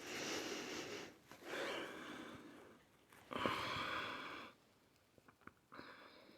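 A person sniffing a freshly opened balut egg close to the microphone: three long sniffs of about a second each, then a short fourth one near the end.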